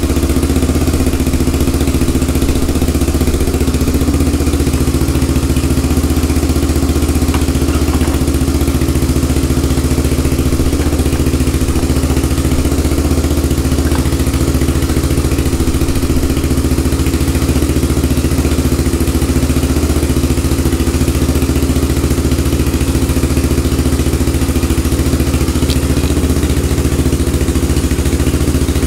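Honda ATC 350X three-wheeler's single-cylinder four-stroke engine idling steadily, running on a freshly fitted reconditioned Keihin carburetor.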